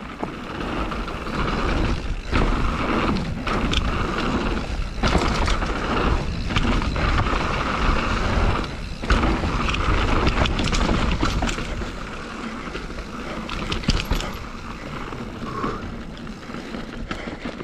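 Mountain bike riding a dirt trail at speed: wind rushing over the microphone and the tyres rolling, with frequent sharp clatters from the bike over bumps. It eases off a little near the end.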